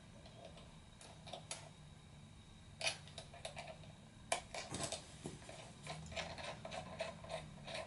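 Light clicks and taps of a plastic propeller and its nut being fitted onto a CX-20 quadcopter's motor by hand, with a sharper click about three seconds in and another just past four, then a run of quick small clicks.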